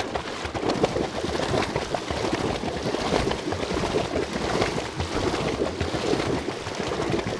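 Pedal-driven home-made bicycle boat under way, its drive churning and splashing water in a continuous, irregular patter.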